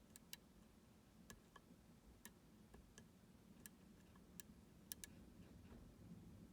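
A lock pick working the pins of a U-Shin Showa NX lock, giving a dozen or so faint, sharp clicks at irregular intervals as the pick moves and pins set.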